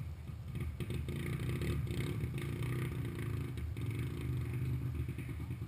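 Vehicle engine idling steadily; it gets a little louder about half a second in, with some rattling over it.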